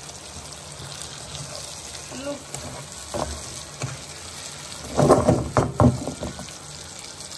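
Thick masala gravy sizzling in a kadhai while paneer cubes are stirred in with a spatula. The spatula scrapes and knocks against the pan, loudest in a quick run of strokes about five seconds in.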